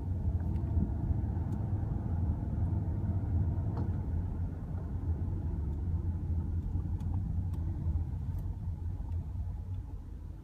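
2008 Lexus LS 460 running with a steady low rumble, over which a few sharp, irregularly spaced clicks are heard: the knocking/clicking noise the car has developed. The rumble eases off in the last couple of seconds.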